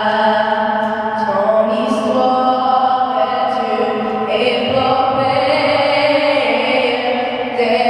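A girl singing a national anthem solo and unaccompanied into a microphone, holding long notes that step to a new pitch every second or so.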